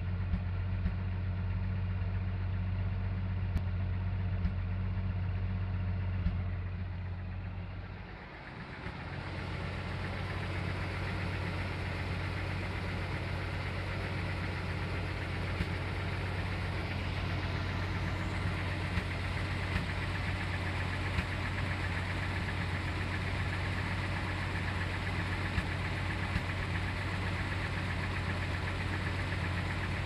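Full-size Jeep engine idling with a misfire: a steady run broken every few seconds by a sharp pop. The miss comes from cylinder 6, whose spark plug is fouled by ash deposits, likely from a bad valve seal letting oil into the combustion chamber. The sound dips briefly about eight seconds in.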